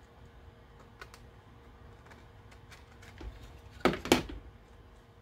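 Hard plastic drone parts, the 3DR Solo shell and the GPS mast base, being handled and fitted together: small scattered clicks, then two sharp clacks in quick succession about four seconds in.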